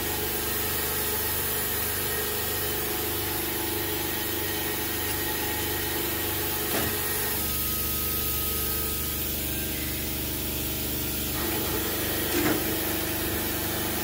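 Cylinder boring bar running steadily as its cutter bores out a cylinder of a Nissan RB30 engine block. Its tone changes for a few seconds around the middle.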